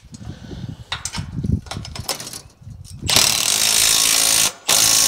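Scattered knocks and rattles of hardware being handled, then a power drill runs twice, about a second and a half and then just under a second, driving a fastener home to secure the hayrack.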